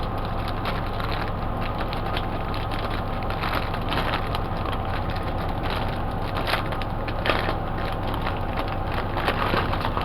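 Packaging and small items being handled during an unboxing: irregular rustling, crinkling and small clicks and taps, a little louder several times, over a steady low hum.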